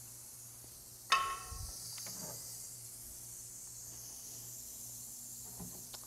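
Prairie rattlesnake rattling its tail, a steady high buzz, with one sharp knock and brief ring about a second in.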